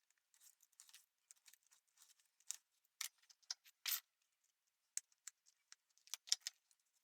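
Old vinyl rifle case and its padding being cut: faint, irregular snips and crackles, with a few sharper clicks about three seconds in and again near six seconds.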